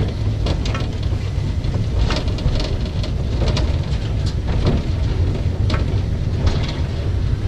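Narrow-gauge Hunslet steam locomotive heard from its footplate while moving slowly, a steady low rumble and hiss with scattered clanks and clicks from the running gear and rails.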